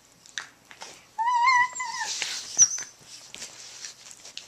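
Small dogs play-wrestling: one dog gives a single wavering whine of under a second, about a second in. Scuffling of fur and bedding with small clicks follows, and a brief high squeak comes midway.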